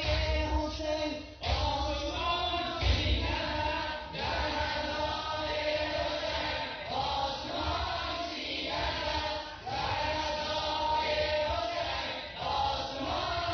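Recorded music: a group of voices singing together in chorus, like a chant.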